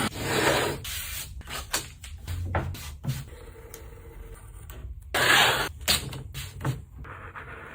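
Woodworking shop handling noises: scattered knocks and clicks of pieces being moved, with a short, loud, hissing burst about five seconds in.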